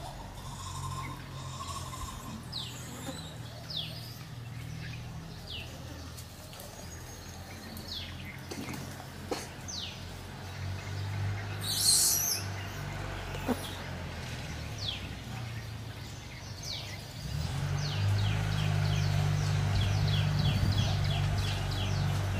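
Small birds chirping: short falling chirps about once a second, breaking into a quick run of several chirps a second near the end, over a low steady hum. A brief hiss stands out about halfway through.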